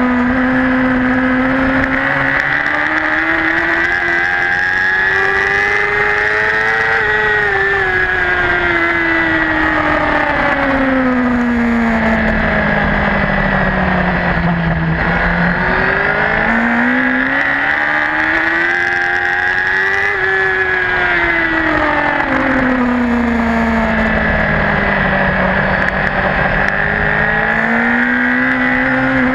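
Racing superbike's engine heard onboard at speed, its pitch climbing and falling smoothly twice as the bike accelerates and slows, with wind rush on the camera underneath.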